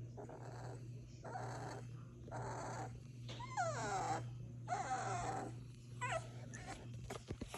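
Sleeping puppies snoring, a noisy breath repeating about every second, with a couple of high whimpers falling in pitch from a dreaming puppy midway. A steady low hum runs underneath, and a few sharp clicks come near the end.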